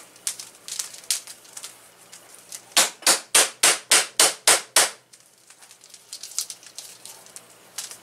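Rapid knocking: about eight sharp raps in quick succession, roughly four a second, starting about three seconds in. A few fainter clicks come before them.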